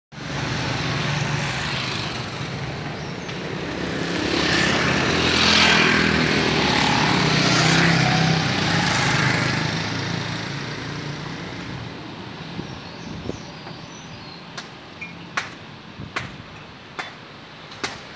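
Road traffic, motorbikes and other vehicles, passing close with engines running. It is loudest a few seconds in and then fades. In the second half, a series of sharp ticks comes regularly, a little under a second apart.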